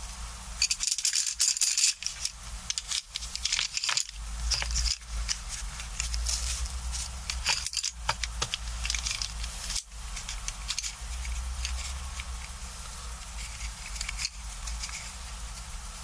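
Wooden coloured pencils clicking and rattling against one another as they are gathered by hand into a bundle, in quick irregular clatters that are busiest in the first half and thin out later.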